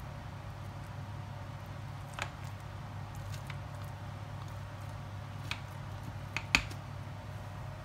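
A metal blade cutting through baked macaroni béchamel in a glass baking dish: soft squishing, with a few sharp clicks as the blade knocks the glass. The loudest click comes near the end.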